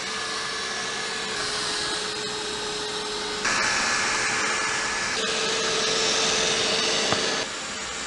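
Xiaomi Roborock second-generation robot vacuum running on a wet-mopping clean: a steady whirring hum from its suction fan with a thin steady mid-pitched tone. It gets louder about three and a half seconds in and drops back near the end.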